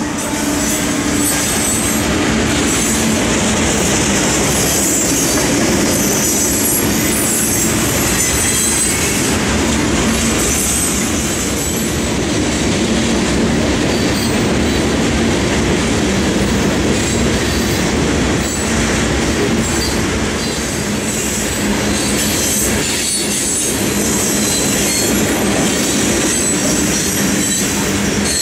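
CSX freight train of open-top hopper cars rolling past, its steel wheels rumbling and clattering on the rails with a steady high-pitched wheel squeal.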